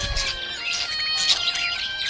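Background music with long held notes, and quick high budgerigar chirps over it, the loudest about a second and a half in.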